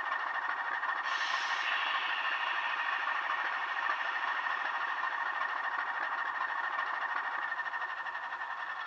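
DCC sound decoder in a Heljan Class 16 model diesel locomotive, playing a Class 15 diesel engine sound file through a small bass-enhanced speaker, idling steadily with the loco at a stand. A short hiss cuts in about a second in.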